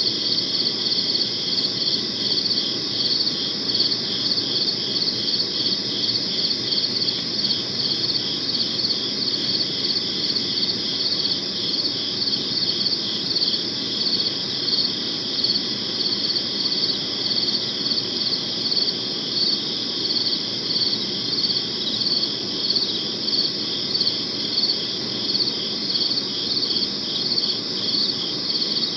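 Crickets chirping in a steady chorus: a continuous high trill with regular pulsing chirps about one and a half times a second, over a faint low background hum of night ambience.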